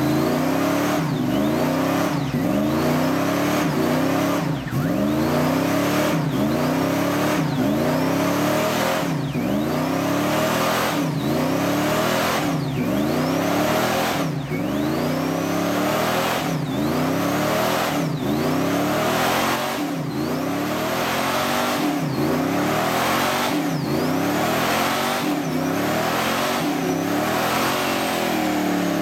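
Pickup truck engine revving in a smoky burnout, its pitch rising and falling about once a second, with the spinning rear tire squealing on the pavement.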